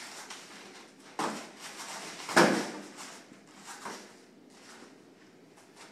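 A body landing on a padded mat floor with a heavy thud about two and a half seconds in, the fall from a leg-hook takedown. Smaller thumps and scuffs of bare feet and bodies on the mat come before and after it.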